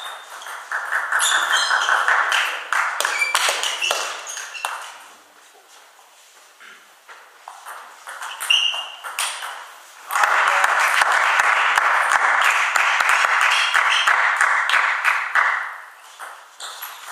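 Table tennis balls clicking sharply off bats and tables in a sports hall. There are two longer stretches of dense, loud noise, one about a second in lasting some four seconds and one from about ten seconds in lasting five-odd seconds; each cuts off fairly sharply.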